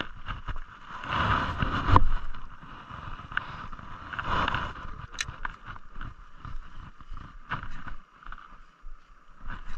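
Water lapping around a small open boat, with the scattered clicks of a spinning rod and reel being handled while a popper lure is cast and retrieved.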